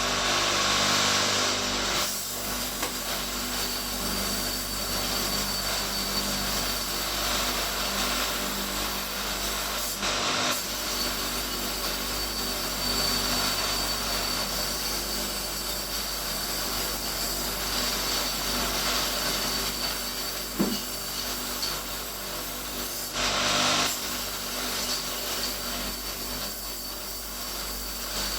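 Homemade profile-pipe cleaning machine running, its spinning angle-grinder brushes scrubbing rust and oil off a steel tube. A steady motor hum and brushing noise with a thin high whine, louder for a moment near the start and again about three-quarters of the way through.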